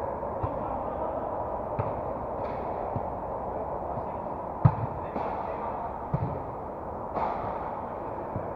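A football being kicked during a five-a-side warm-up on an artificial-turf pitch: a handful of separate sharp thumps, the loudest about halfway through, over a steady background hiss.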